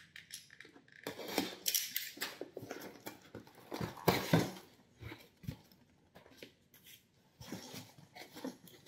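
Utility knife slicing the packing tape on a cardboard shipping box, then the cardboard flaps being pulled open with scraping and rustling, loudest about four seconds in.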